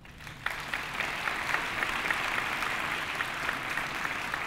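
Audience applauding, the clapping starting about half a second in and then holding steady.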